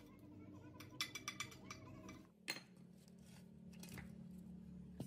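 Faint metallic clicks and clinks of metal brake parts being handled, a quick run of them about a second in and one sharper knock about halfway through.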